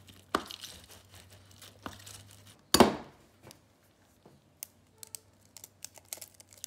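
A lemon half being twisted and squeezed on a plastic hand juicer, with a soft rubbing and crackling. A single sharp knock comes just under three seconds in, followed by sparse small clicks as fingers crack open an eggshell over a bowl.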